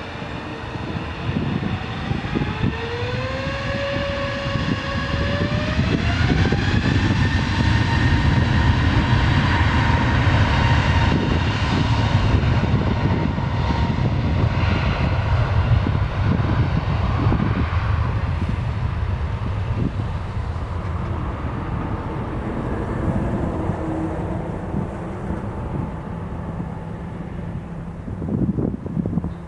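Airbus A321's turbofan engines spooling up to takeoff thrust: a whine rising in pitch over a few seconds, then the loud steady rumble of the takeoff run, fading away over the last ten seconds or so.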